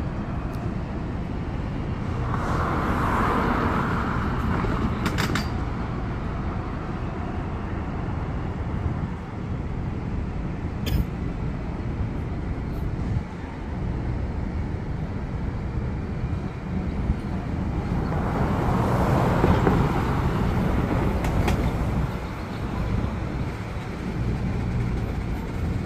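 Trackmobile railcar mover's diesel engine running with a steady low rumble as it pushes covered hopper cars. The rumble swells twice for a few seconds, and there are a few sharp clicks.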